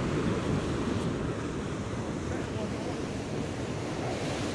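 Sea waves washing steadily against a rocky shore, with wind buffeting the microphone.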